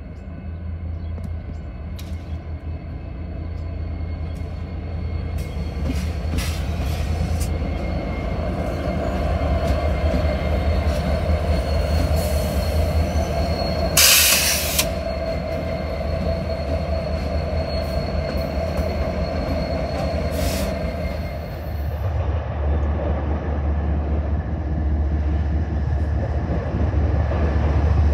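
BNSF diesel freight train passing close by: locomotive engines rumbling and steel wheels rolling on the rails, with brief wheel squeals and one short, loud, high-pitched burst about fourteen seconds in. After a cut about two-thirds of the way through, a second train's BNSF diesel locomotives are heard approaching, rumbling louder.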